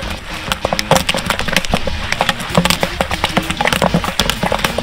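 Kettle corn popping in a steel kettle: many sharp, irregular pops, several a second, from kernels bursting in hot oil with the sugar and flavouring already added.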